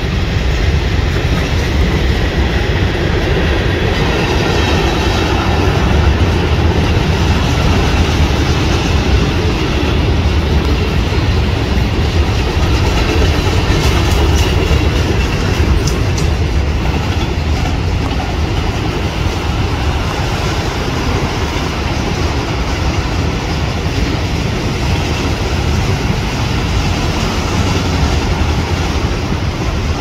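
A freight train's hopper and autorack cars rolling past: a loud, steady rumble of steel wheels on the rails, with clattering from the cars.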